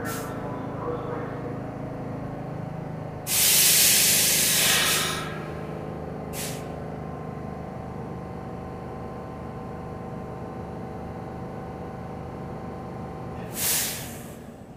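An R46 New York City subway car standing with its doors open: a steady hum from its idling equipment, broken by bursts of compressed-air hiss. There is a loud hiss of about two seconds a few seconds in, a brief one shortly after, and another short one near the end.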